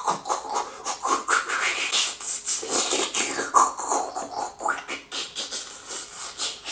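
Fast rhythmic clicking mixed with sliding, rising and falling pitched sounds, beatbox-like with scratch-style sweeps.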